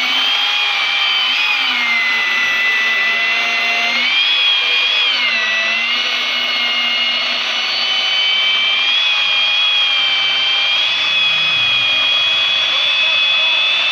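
Handheld chainsaw running as it cuts through a log, its motor whine dipping in pitch and recovering a few times as the chain bites into the wood.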